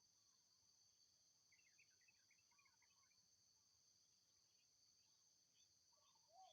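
Faint outdoor ambience of insects trilling steadily in two high tones, with wild birds calling in short arched notes and a burst of quick twittering about a second and a half in.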